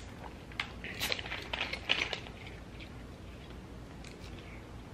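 Drinking from plastic bottles of sparkling flavoured water: a run of soft clicks and crackles of sipping and bottle handling in the first couple of seconds, then only faint room tone.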